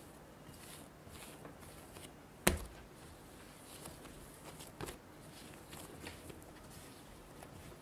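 Yeast dough being kneaded and rounded by hand on a bamboo cutting board: quiet pressing and rubbing, with a sharp knock on the board about two and a half seconds in and a lighter one about two seconds later.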